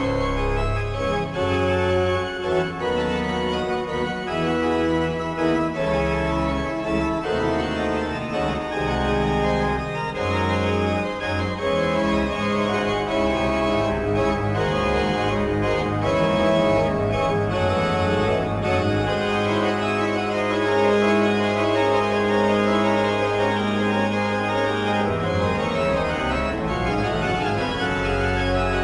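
Organ music: sustained chords held over deep bass notes that change slowly.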